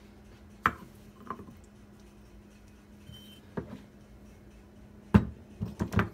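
Knocks of a block of ice being set into the base of a heavy metal ice-ball press, then the press's heavy metal top piece set down onto the base's guide posts, with one loud knock about five seconds in followed by several smaller knocks.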